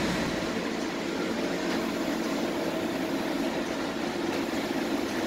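1999 CMZ TBI-480 CNC lathe running with a steady mechanical hum.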